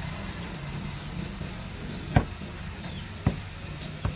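Wooden rolling pin knocking against a wooden board three times, about a second apart, while a large round of dough is rolled out.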